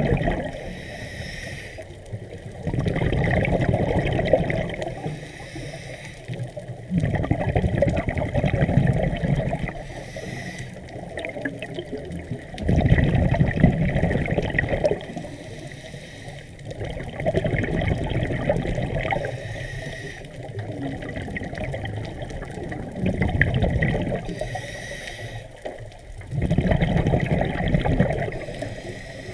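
Water sloshing and rushing, swelling and falling in repeated surges every few seconds.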